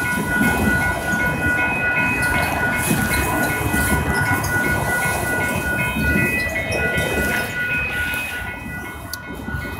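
Freight train of autorack cars rolling past, with a steady low rumble and clatter from the wheels, while the crossing's warning bell rings in an even, repeating ding. It grows somewhat quieter near the end.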